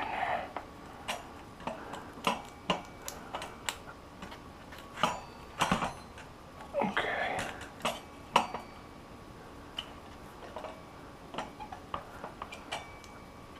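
Scattered metallic clinks, taps and knocks as a motorcycle rear wheel, its axle and spacers are handled and worked back into the swingarm, with a couple of short breathy mutters of effort.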